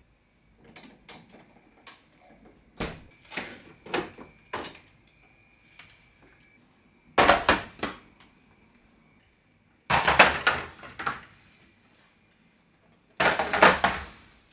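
Refrigerator drawers and shelves being handled: a few light knocks, then three scraping slides of about a second each.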